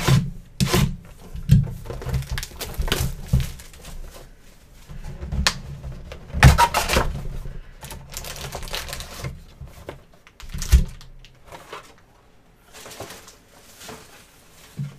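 A cardboard trading-card hobby box being opened by hand and its foil packs taken out: irregular crinkling, rustling and tapping, busiest in the first ten seconds or so and quieter near the end.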